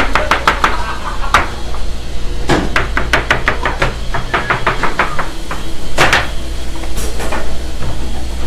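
Kitchen knife chopping rapidly on a cutting board, about five strokes a second in two quick runs, with a few heavier single knocks of the blade on the board, over a steady low hum.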